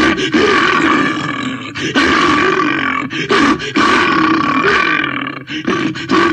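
Cartoon bear sound effects: a run of loud growls and roars, broken by a few brief pauses.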